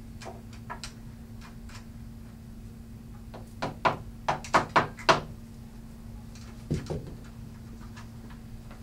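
Red rubber mallet tapping bolts into the wooden frame of a loft bed: a quick run of about six knocks starting about three and a half seconds in, then a single duller thud a second and a half later. A steady low hum runs underneath.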